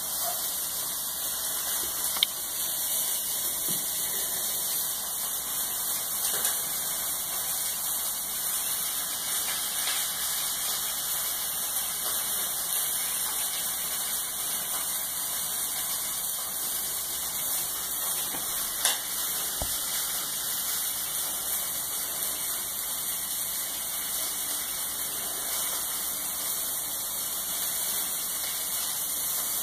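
Steady, even hiss, strongest in the high range, with two faint clicks.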